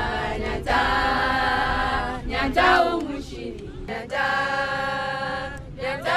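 A group of voices singing or chanting without instruments, holding long steady notes in phrases of a second or two, with short breaks and a few sliding notes between them.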